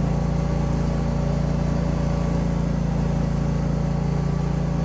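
The engine of a JayLor self-propelled TMR feed mixer running steadily at a constant speed, a low, even drone.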